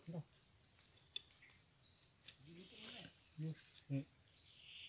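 Steady, high-pitched drone of a forest insect chorus, unbroken throughout, with two brief low sounds about three and a half and four seconds in.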